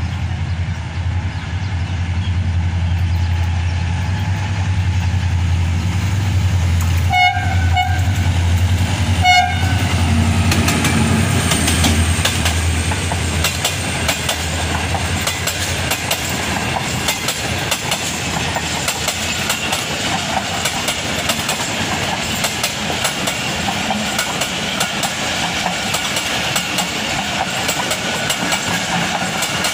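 Pakistan Railways HGMU-30R diesel-electric locomotive running past with a steady low engine drone, sounding two short horn blasts about seven and nine seconds in. Once it is by, the passenger coaches roll past with a continuous wheel-on-rail rumble and rhythmic clicks over the rail joints.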